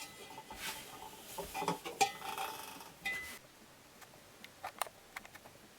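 Clattering and clinking of something being handled, busiest in the first half, then a few scattered clicks.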